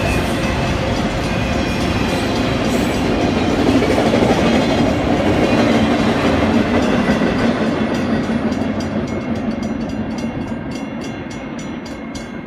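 Freight train of autorack cars rolling past, steel wheels rumbling on the rail, with a regular clickety-clack over the rail joints in the later part as the sound fades.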